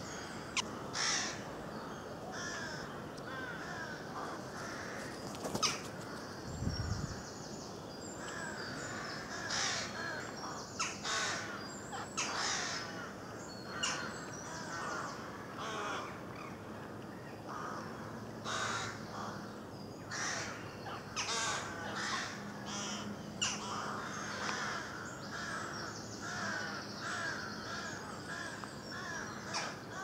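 Rooks cawing again and again, over a steady background of smaller woodland birds chirping and singing.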